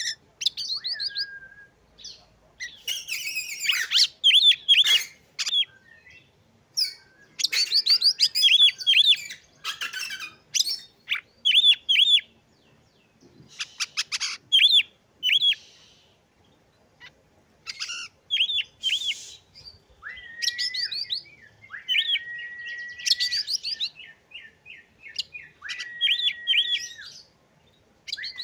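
Oriental magpie-robin singing: bursts of quick repeated chirps in varied phrases. In the second half these are broken by several long, level whistles.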